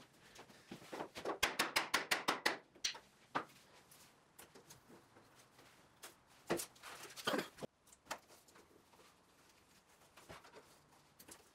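Handling noises of PVC pipe and plastic dust-collection fittings being worked by hand: a quick run of crackling clicks about a second in, then scattered knocks and rustles.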